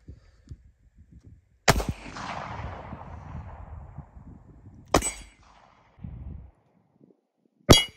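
.38 Special gunshots: two shots about three seconds apart, the first trailing off in a long echo. Another sharp crack comes near the end.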